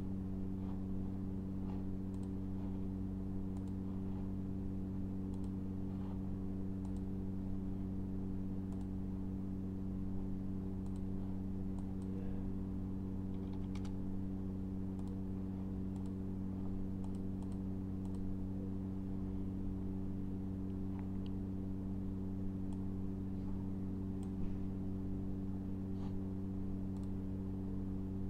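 Computer mouse clicks and a few keyboard keystrokes, scattered and irregular, over a steady low electrical hum.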